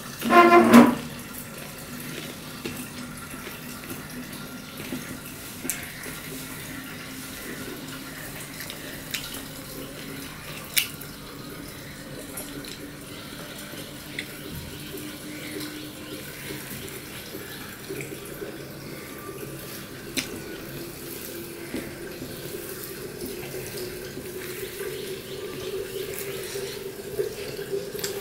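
Wet chewing and mouth sounds of a man eating rice and fried greens by hand, with his fingers mixing the rice on a steel plate, over a steady low hum. A brief louder sound right at the start and a few sharp clicks.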